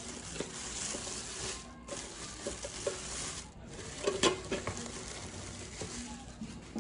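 Clear plastic bag crinkling and rustling around an electric egg cooker as it is handled and lifted from its cardboard box, with a short cluster of sharp clicks a little past the middle.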